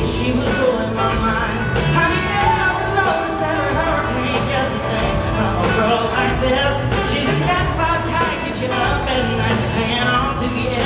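Live country-pop band performance: a male lead singer sings over acoustic guitar, a steady drum beat and bass, played loud through an arena sound system.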